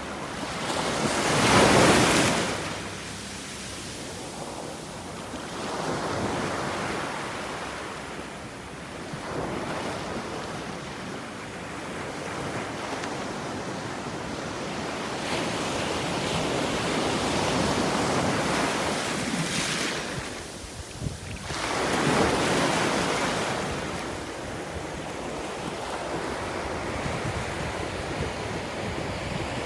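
Sea waves breaking and washing up the shore in slow swells, with the biggest crash about two seconds in and another about twenty-two seconds in.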